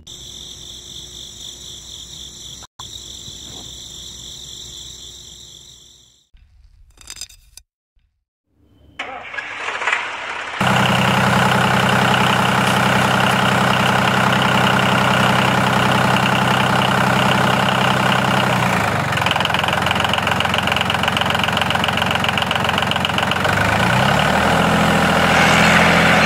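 Tractor engine running steadily. It starts abruptly about ten seconds in, shifts in pitch later on and rises near the end. Before it there is a quieter steady high whine, then a few seconds of near silence.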